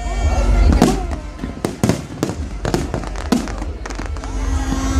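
Fireworks display: a rapid run of sharp bangs and crackles, with deep booms heaviest in the first second.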